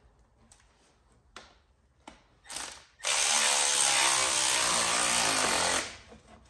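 A handheld power tool, most likely an electric or air ratchet working a fastener on the engine. A brief spurt comes first, then a steady run of nearly three seconds, its motor pitch rising slightly, before it stops.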